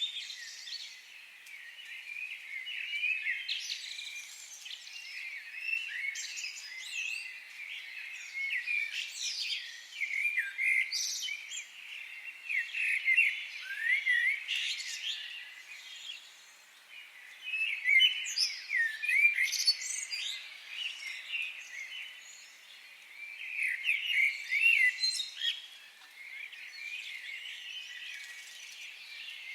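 Birds chirping together in a dense chorus of quick, overlapping chirps and trills, swelling and fading every few seconds.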